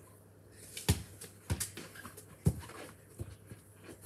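A football thrown in, then bouncing and kicked on a garden lawn: four or five separate sharp thuds spread over the seconds, the loudest as it is kicked near the end.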